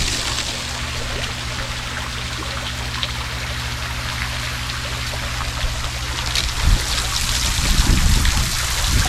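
Water spraying from a row of small holes drilled in a PVC pipe and splashing down into an above-ground pool: a steady hiss and patter like a small waterfall. A steady low hum runs underneath, with a few low rumbles near the end.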